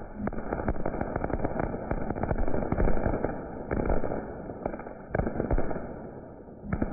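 Firecrackers going off in a rapid, irregular run of sharp cracks, densest in the first three seconds, then thinning to a few separate bangs.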